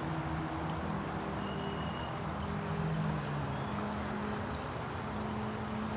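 Creek water running over small rock falls, a steady rush, with a low steady hum underneath and a few faint, short high peeps.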